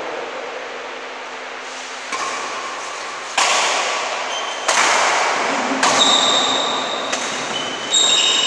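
Badminton rackets striking a shuttlecock in a fast doubles rally: six sharp hits roughly a second apart from about two seconds in, each followed by a short ringing echo in the hall.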